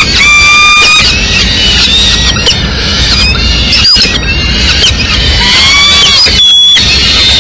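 Peregrine falcon chicks begging to be fed: repeated drawn-out, slightly rising squealing calls of about a second each, mixed with shorter calls. A steady low rumble runs beneath them.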